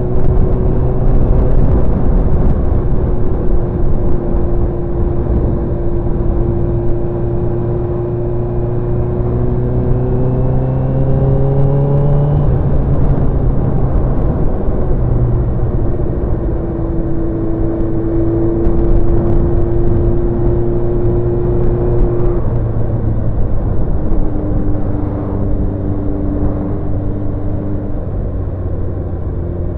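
Sports motorcycle engine with a new exhaust, heard from the rider's seat while riding. The engine note climbs in pitch under acceleration for several seconds, drops sharply about halfway through, and steps between pitches a few more times later.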